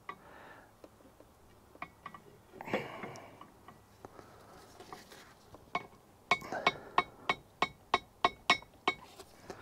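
Hand ratchet wrench clicking as a stubborn bolt is backed out: a few scattered metal clinks at first, then a quick regular run of sharp ringing clicks, about three or four a second, over the last few seconds.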